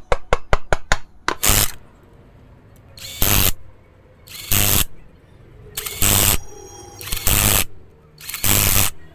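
Cordless 20 V power driver with a long socket extension run in six short bursts, about half a second each, tightening the bolts of a motorcycle engine's clutch-side cover. A quick run of sharp clicks comes in the first second, before the first burst.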